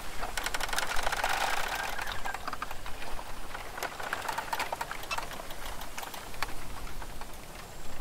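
Rapid, irregular tapping and clicking, densest in the first two seconds and sparser after, over a steady hiss.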